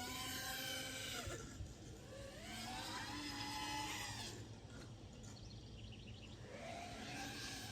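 FPV racing drone's brushless motors whining, the pitch rising and falling several times as the throttle is opened and closed in flight.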